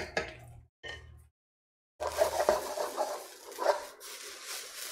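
Wooden spatula scraping and clattering in a wok as egg fried rice is stir-fried and tossed, over a hiss of frying. About a second in, the sound cuts out completely for most of a second.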